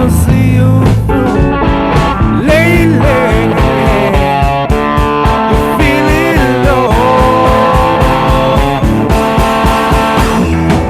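Rock music with a bluesy lead electric guitar bending and sliding notes over a steady beat.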